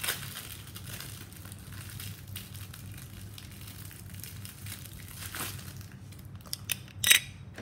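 Plastic packaging crinkling and crackling as a model aircraft's display stand is unwrapped by hand, with a few sharper clicks near the end.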